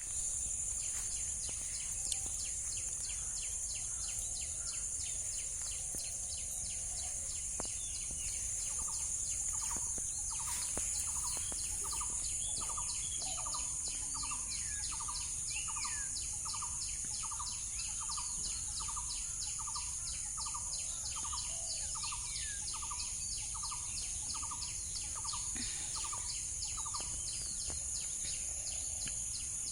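Birds calling over a steady high drone with a fast, even pulsing. One bird repeats a short note about once a second from about nine seconds in until near the end, and others chirp here and there.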